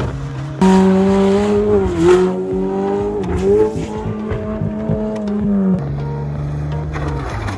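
Car engine at high revs under hard throttle, its note held mostly steady with brief dips, then a lower, steady engine note near the end.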